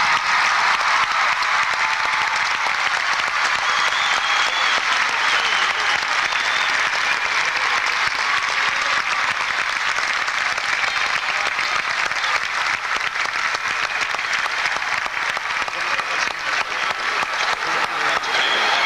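Large crowd applauding and cheering at the end of a marching band's show: dense, steady clapping with a few shouts or whistles on top.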